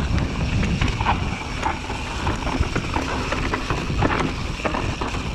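Mountain bike descending a dirt trail: tyres rumbling over dirt and roots, with frequent rattles and knocks from the bike, and wind buffeting the microphone.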